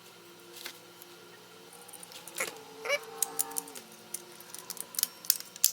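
Small clicks and taps of plastic parts being handled and fitted together, a dense run of them in the second half, over a faint wavering tone.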